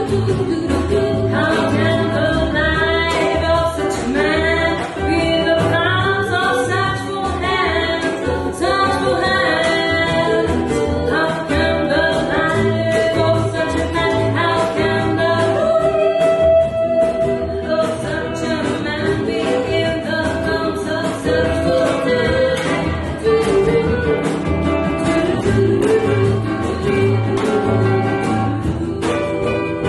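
Live acoustic band playing a song: women's voices singing over acoustic guitar and double bass.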